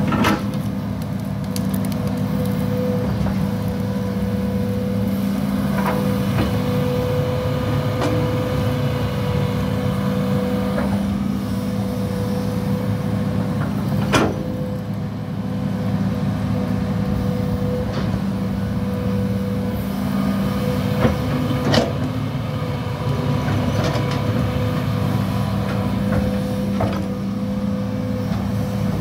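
Hitachi 210 hydraulic excavator's diesel engine running steadily under working load, with a steady whine over it. Sharp clanks come now and then as the bucket and boom move soil.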